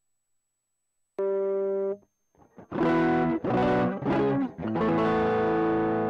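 Electric guitar played through an effects pedalboard. A chord is held and cut off short about a second in, then a few strummed chords follow and the last one is left ringing.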